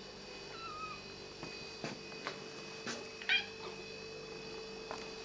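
Domestic cat meowing for food: a faint short meow about half a second in and a louder one just after three seconds, with a few soft clicks between.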